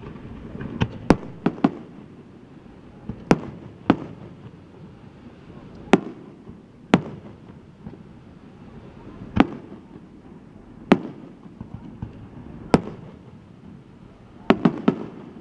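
Aerial firework shells bursting overhead: about a dozen sharp bangs at irregular spacing, several in quick succession near the start and again near the end.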